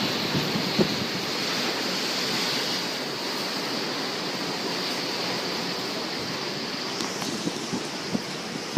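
Ocean surf washing in as a steady rushing hiss that eases slowly, with no distinct breaking crashes.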